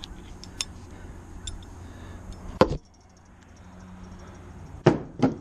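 Small metal clinks of a socket and extension being handled, then a sharp knock about two and a half seconds in and two more knocks close together near the end.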